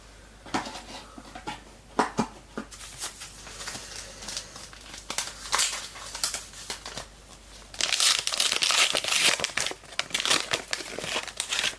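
A trading-card pack wrapper being torn open and crinkled: scattered light rustles and clicks at first, then a dense burst of crinkling from about eight seconds in that stops just before the end.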